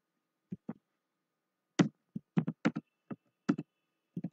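Typing on a computer keyboard: separate key clicks, two, then a pause of about a second, then a quicker irregular run of keystrokes.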